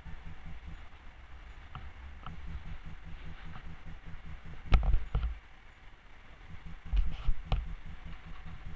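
Tram rolling slowly with a low rumble, its wheels knocking over rail joints in two clusters of clunks, about five and seven seconds in.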